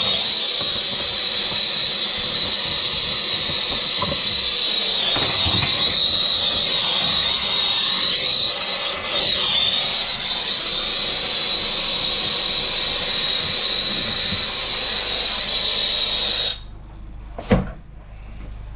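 A plumber's gas torch burning with a steady hiss and a thin high whistle while heating a valve fitting, then shut off abruptly near the end. A single sharp click follows about a second later.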